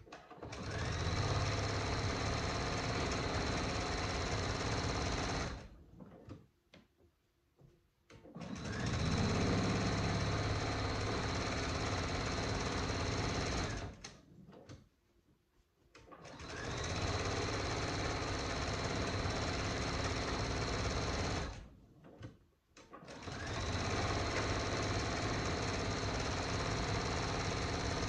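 Pfaff Creative 4.5 computerized sewing machine top-stitching through layers of cotton fabric and batting, running steadily in four runs of about five seconds each and stopping for two to three seconds between runs.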